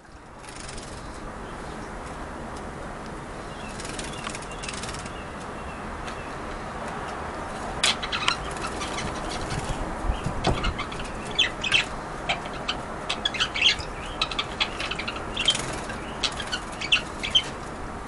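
A canary bathing in a small water dish, fluttering its wings and splashing in quick flurries from about halfway through, over a steady background hiss.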